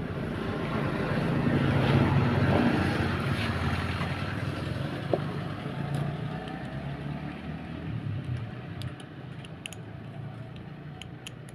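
Motorcycle engine running, growing louder over the first two seconds and then slowly fading.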